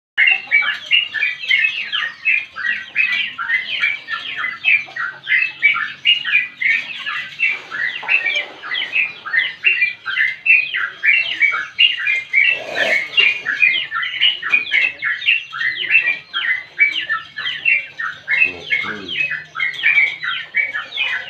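Yellow-vented bulbul (trucukan) singing in a long, unbroken run of rapid, bright chattering notes, several a second.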